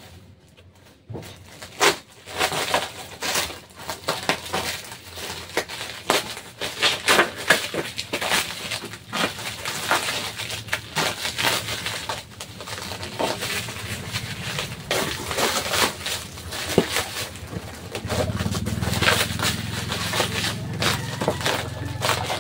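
Plastic bubble wrap and packing tape being peeled, torn and crumpled by hand as a parcel is opened. It is a dense, irregular crackling and rustling that starts about two seconds in.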